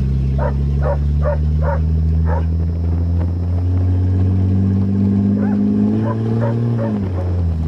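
A dog barking in a quick run of short barks, pausing midway and barking again near the end. Under it a 1982 Toyota Cressida's inline-six engine runs steadily, its pitch climbing and then dropping suddenly near the end as the automatic transmission shifts up.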